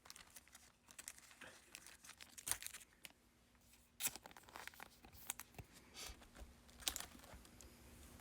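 Faint handling of trading cards and their packaging: scattered light clicks, taps and crinkles, a little louder about two and a half, four and seven seconds in.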